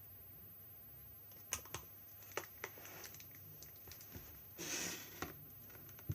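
Handling noise: a few sharp clicks in quick succession, then a short rustle about three quarters of the way in and another click near the end.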